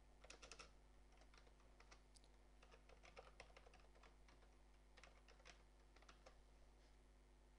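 Faint typing on a computer keyboard: scattered key clicks in short runs with pauses between them.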